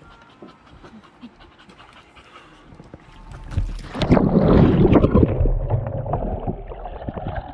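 Small plastic kayak capsizing and being rolled back upright in a pool. After a few fairly quiet seconds, a rush of splashing and churning water starts about three and a half seconds in. It is heaviest while the boat is over and eases off as it comes back up.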